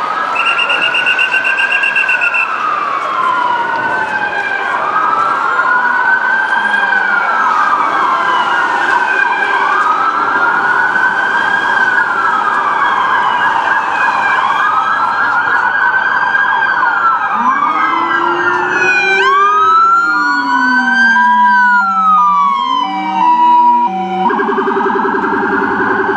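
Ambulance siren wailing in slow rising-and-falling cycles about three seconds long. Past the middle the pattern changes: sirens sweep up faster, with a lower siren tone sweeping underneath, and a steady blaring tone takes over near the end.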